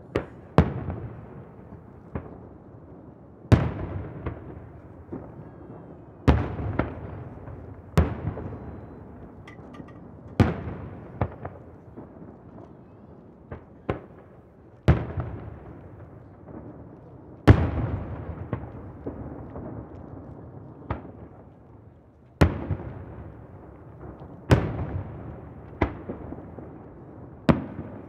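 Aerial firework shells bursting one after another, a sharp boom every one to three seconds. Each boom has a long echo that fades away, thrown back from the hills around the bay.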